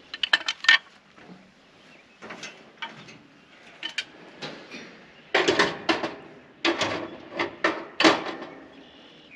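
Series of sharp metal clanks and knocks as tools and fittings are handled on a steel railcar platform: a quick cluster in the first second, scattered knocks after, then a louder run of clatters from about five to eight seconds in.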